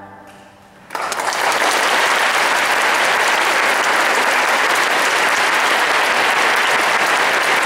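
The last sung chord fades away, and about a second in the audience starts applauding, a steady wash of clapping that holds to the end.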